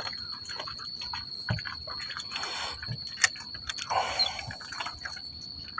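Small water sounds against a boat hull, with scattered light clicks and a brief hiss, over a steady high-pitched whine.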